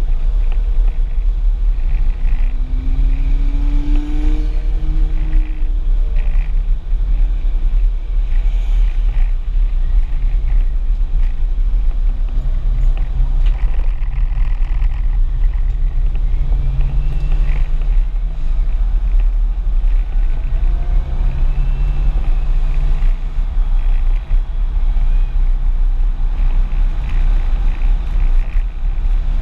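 Audi S4 driven hard on a race track, heard from inside the cabin: a heavy low rumble of road and wind noise with the engine note rising and dropping at intervals as the car accelerates and lifts.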